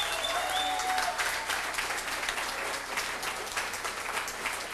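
Crowd of supporters applauding steadily, with a brief high-pitched call or cheer from the crowd in the first second. The clapping eases slightly toward the end.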